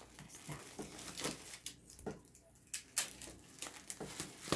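Bubble wrap being handled, rustling with irregular short sharp crackles; the sharpest comes about three seconds in.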